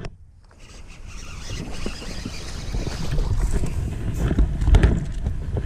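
A hooked largemouth bass splashing at the surface as it is fought and swung up to the boat. Wind buffets the microphone throughout, and short knocks and thumps come near the end as the fish reaches the boat.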